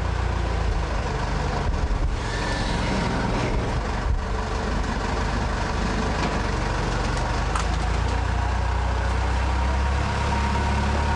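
Engine of a heavy work vehicle running steadily, a low rumble, with a few short knocks.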